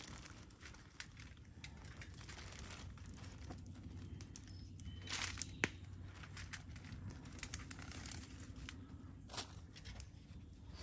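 Soft crinkling and rustling of wrapping, with scattered small clicks and a louder crinkly burst about five seconds in, as meat is taken out of its packaging.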